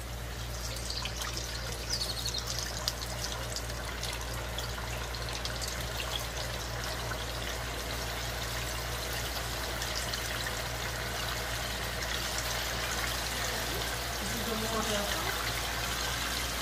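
Floured chicken pieces deep-frying in hot oil, which sizzles hard with scattered crackles as the pieces go in. The sizzle grows fuller and a little louder toward the end as the pot fills with chicken.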